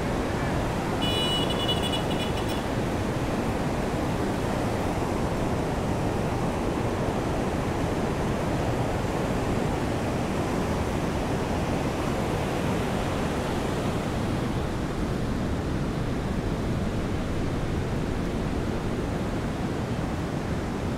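Surf breaking on a beach and rain falling, an even, unbroken wash of noise. A brief high-pitched tone sounds about a second in.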